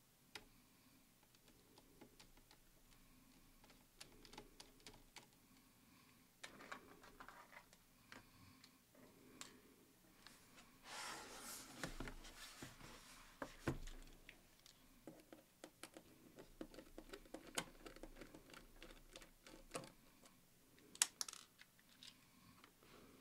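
Faint clicks and taps of hands handling a laptop's plastic lid and screen panel during disassembly. A longer scraping rush about halfway through comes as the open laptop is turned around on the desk, and a couple of sharper clicks come near the end.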